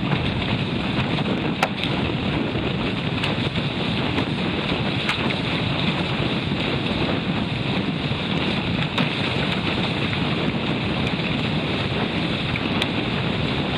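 Wind buffeting the microphone over the steady rush and splash of water along the hull of a 16-foot beach catamaran sailing fast, with a few sharp ticks.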